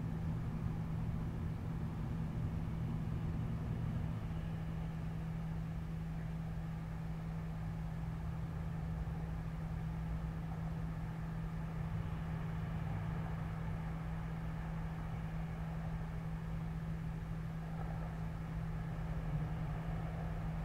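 Steady low city background rumble heard through a window, with a constant low hum running under it.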